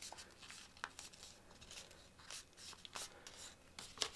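Faint rustling and crinkling of a square sheet of folding paper being creased and pressed flat by hand, with a few soft crackles scattered through.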